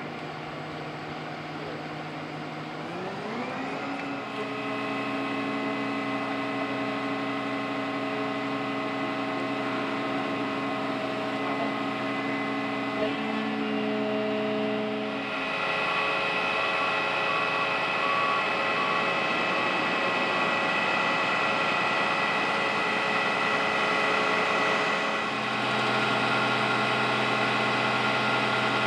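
Aerial ladder truck's diesel engine running, its pitch rising about three seconds in as it speeds up and then held steady at a raised idle, with a steady hum of even tones that changes character about halfway through and again near the end.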